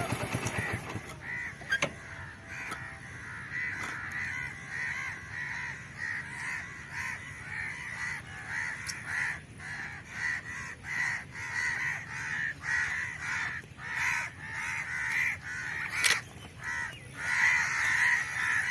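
A bird calling over and over in harsh, caw-like calls, about two a second. A sharp click cuts in about sixteen seconds in.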